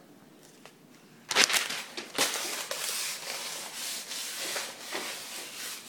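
Handling noise from the recording phone as it is moved and fitted onto a camera stand: after a second of quiet, a couple of knocks and then continuous rubbing and scraping against the microphone.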